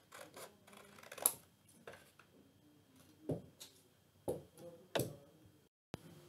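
Large metal scissors finishing a cut through a paper sheet with a few quick snips. Then comes a sharp click about a second in and several separate light taps and knocks as the scissors, a plastic ruler and the paper are handled and set down on a cloth-covered table.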